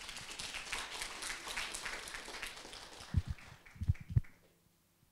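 Audience applauding with a dense patter of claps that cuts off abruptly about four seconds in, with a few dull thumps just before it stops.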